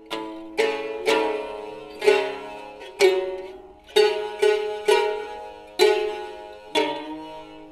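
Shamisen played solo: about ten single plucked notes, roughly one a second with a few coming quicker, each struck sharply and ringing away before the next.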